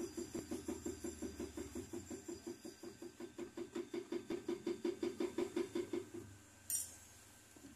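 Jeweller's blowtorch flame running with a rapid pulsing, about five or six pulses a second, while the bangle's join is soldered. The pulsing stops about six seconds in, followed by one sharp click.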